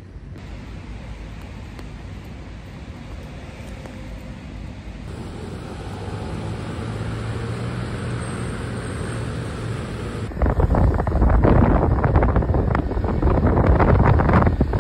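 City street noise of passing traffic. Wind buffeting the microphone becomes loud and rumbling for the last four seconds or so.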